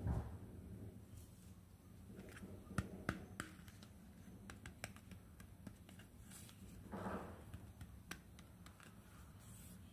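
Faint, irregular clicks and taps of small plastic toy pieces being handled, with a short rustle about seven seconds in.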